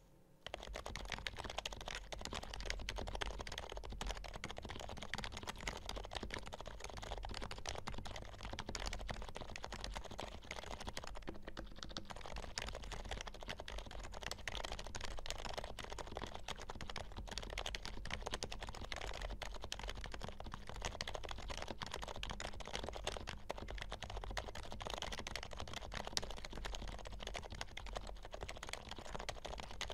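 Continuous fast typing on an HHKB Professional Hybrid Type-S keyboard with Topre electrostatic capacitive switches, lubed with Krytox 205g0 and fitted with Realforce keycaps: a dense stream of keystrokes that begins about half a second in, with a brief lull about eleven and a half seconds in.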